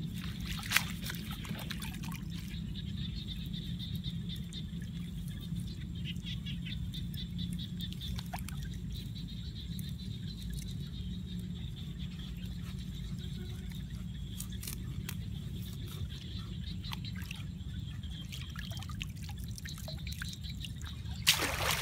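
Shallow rice-paddy water trickling and splashing as hands pack grass around a bamboo fish trap, with scattered small clicks over a steady low rumble. There is a sharp click about a second in and a louder burst of noise near the end as the trap is moved.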